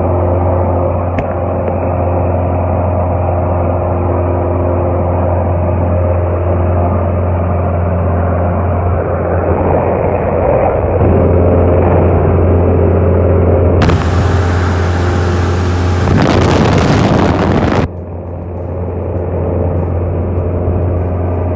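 Steady drone of a light single-engine plane's piston engine and propeller heard from inside the cabin in flight: a deep hum under a hiss. A loud rushing noise covers it for about four seconds past the middle, then cuts off suddenly.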